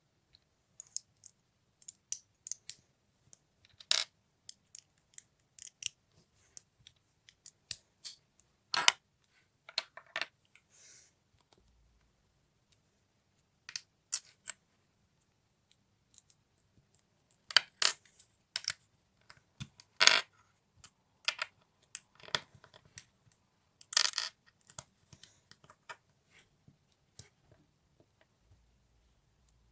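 Small plastic LEGO bricks clicking and clacking as they are handled, sorted and pressed together. The clicks come singly or in short clusters at irregular intervals, with brief quiet gaps between them.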